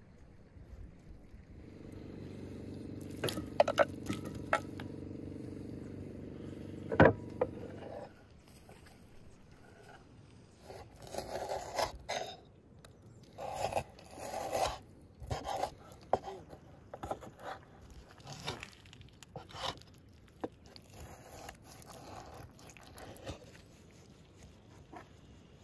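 Large kitchen knife cutting cow tail pieces on a wooden cutting board: a few sharp knocks of the blade on the board, then a series of short crunching, scraping strokes as it cuts through the tail, with lighter taps after. A low steady hum runs under the first several seconds.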